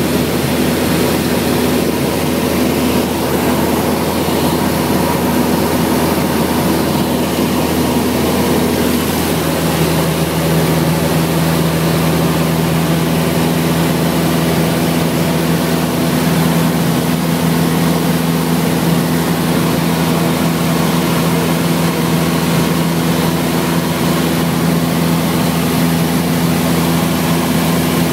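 Light plane's engine and propeller heard from inside the cabin: a loud, steady drone with a noisy rush. A lower steady tone joins about nine or ten seconds in.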